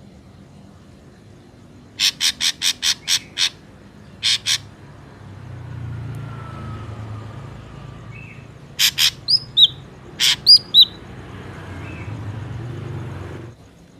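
Ashy drongo calling: a quick series of about seven harsh, rasping notes, a pair more, then harsh notes mixed with short falling whistles. This is a lure call used to draw drongos in. A low rumble runs underneath and cuts off suddenly near the end.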